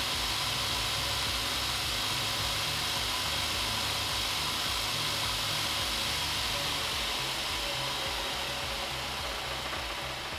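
Bench grinder converted to a 2x42 belt grinder running without load: a steady hiss of the sanding belt over its wheels, easing off slightly near the end.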